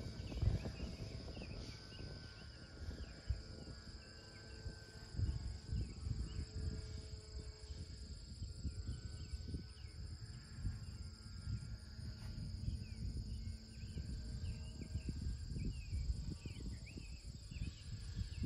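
Field insects such as crickets: a steady high drone with many short repeated chirps, under gusty wind rumble on the microphone.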